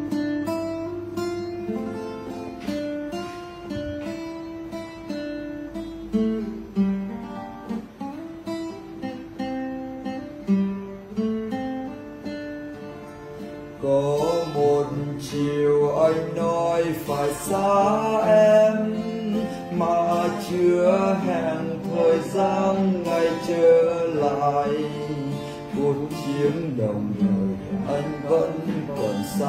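Acoustic guitar playing a song accompaniment of plucked notes and chords. About halfway through it gets louder as a man's singing voice joins the guitar.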